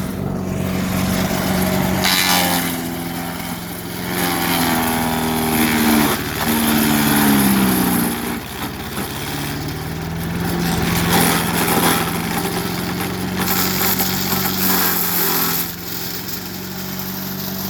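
Craftsman 4 HP chipper/shredder's small engine running under load as rotten wood is fed in. Its pitch drops several times in the first half as it bogs down, with noisy bursts of wood being chewed up, the longest in the second half.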